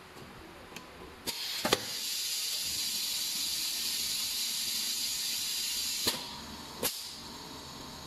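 Pneumatic cylinders on a PVC refrigerator door-gasket welding machine clack twice as the heater plate pulls away and the clamps close. Compressed air then hisses steadily for about five seconds, and two more clacks come as the hiss cuts off.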